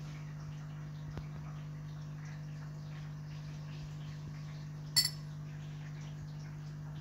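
A single sharp, ringing clink of a drinking glass being knocked about five seconds in, with a faint tap about a second in, over a steady low hum.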